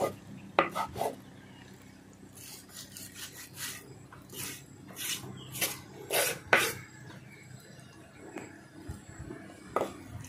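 Kitchen knife slicing raw pork on a wooden cutting board: irregular short strokes and scrapes of the blade through the meat and against the board.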